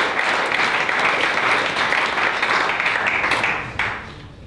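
Audience applauding, the clapping dying away about three and a half seconds in.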